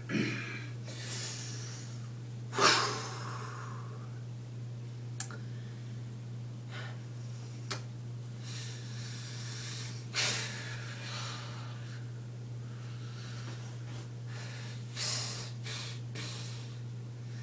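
A person breathing heavily, with several separate airy breaths a few seconds apart, the loudest about two and a half seconds in, over a steady low hum.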